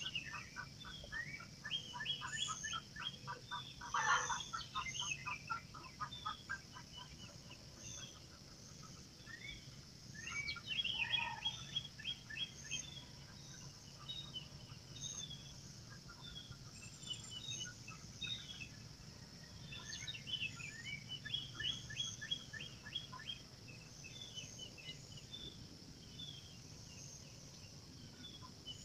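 Wild birds chirping and trilling in quick repeated series, loudest about four and eleven seconds in, over a steady high-pitched drone.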